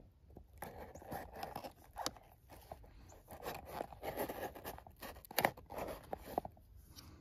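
Gordon drop-point pocket knife slitting packing tape and cardboard on a box: a run of scraping, tearing strokes with a few sharp clicks.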